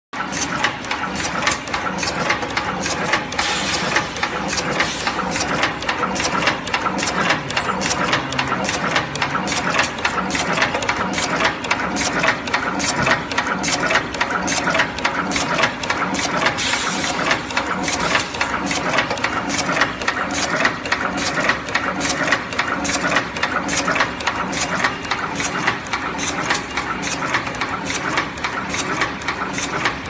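Automatic wire cutting, stripping and two-end terminal crimping machine running, with a steady mechanical rumble and an even run of sharp clicks a few times a second from its cutting and crimping strokes.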